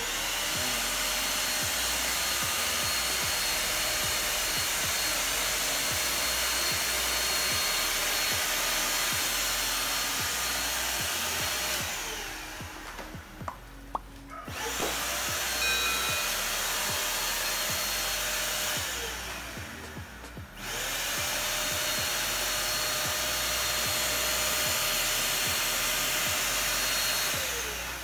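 JK-2 electric stick vacuum cleaner running with its floor head on a tile floor: a steady rush of suction with a whine over it. It is switched off and spins down twice in the middle, the whine falling away, and starts again quickly each time, then winds down once more near the end.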